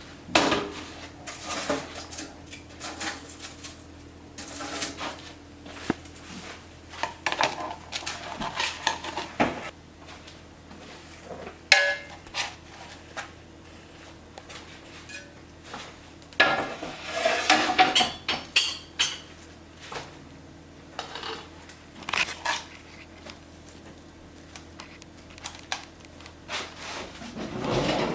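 Dishes and metal utensils clinking and knocking on and off, busiest for a few seconds about two-thirds of the way through, over a steady low hum.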